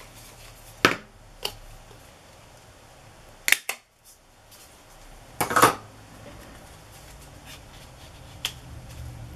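Handheld hole punch clicking as it punches a small paper tag, among a few other short clicks and knocks of tools and paper being handled. The loudest, a slightly longer knock, comes about halfway through.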